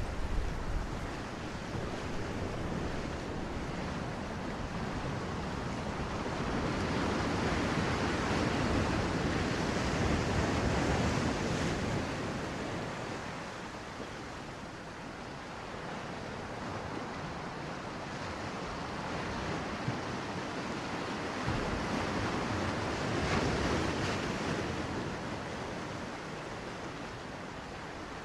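Shallow surf washing in over a beach, a steady rush of water that swells up twice and eases off, picked up by a camera held in the water.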